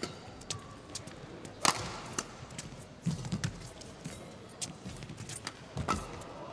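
Badminton rally: rackets strike the shuttlecock in several sharp hits, the loudest a little under two seconds in and another near the end, with the players' thudding steps on the court in between.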